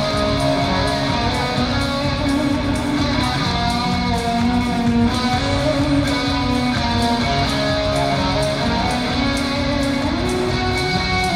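Live rock band playing loudly: strummed electric guitars over bass, with a steady drum beat.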